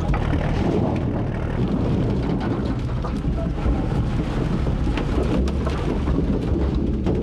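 A bucketful of split firewood sliding and clattering out of a wheel loader's bucket into a steel dump truck box: a continuous rumbling rattle of many chunks of wood knocking together and against the steel, with the loader's diesel engine running underneath.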